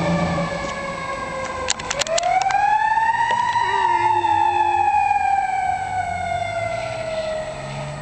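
1994 Pierce Dash fire engine's siren wailing: its pitch falls, climbs quickly back up after a few sharp clicks about two seconds in, then slides slowly down again.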